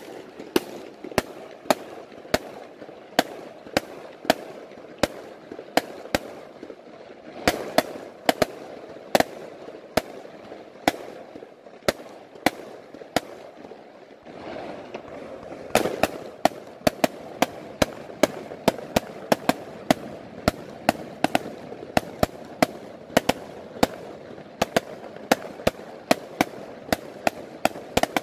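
Aerial fireworks display: a steady string of sharp bangs from shells bursting overhead, several a second and irregular, over a constant background noise. Just past halfway through, the bangs come thicker and louder.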